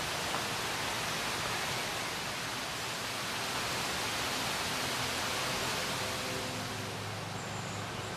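Steady rushing hiss of flowing stream water.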